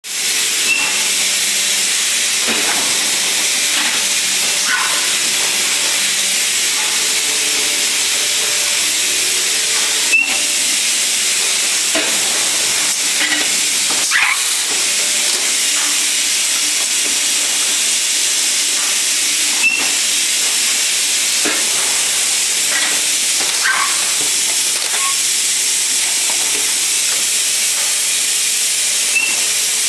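Thermoforming machine running with a steady loud hiss, with a short sharp click about every nine and a half seconds and a few fainter squeaks and taps between.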